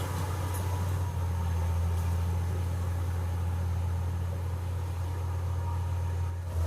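Komatsu D70LE bulldozer's diesel engine running steadily, a low even drone.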